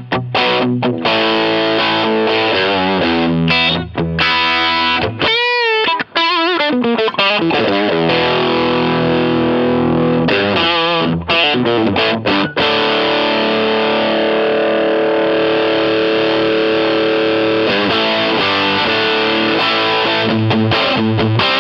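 Distorted electric guitar played through a Quilter Aviator Mach 3 amp and cabinet. Quick riffing, then a high note held with wide vibrato about five seconds in, then long ringing chords.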